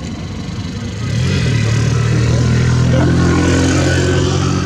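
A motor vehicle engine running steadily, coming in louder about a second in and holding.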